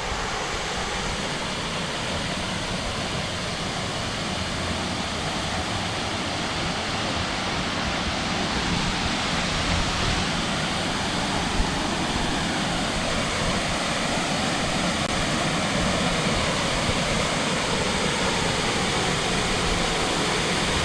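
Waterfall running heavily: a steady, loud rush of falling water that grows slightly louder toward the end.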